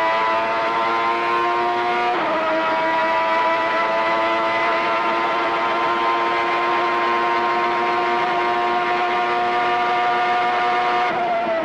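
Ferrari 3.5-litre V12 Formula One engine at full throttle, heard onboard: an upshift about two seconds in drops the pitch, then the revs climb slowly and steadily in a high gear. Near the end the note wavers and falls.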